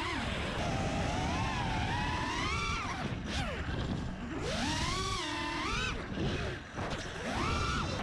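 FPV freestyle quadcopter's brushless motors and propellers whining, the pitch climbing and dropping with the throttle several times, with a dip about three seconds in and again near the end, over a rushing wind noise on the onboard camera.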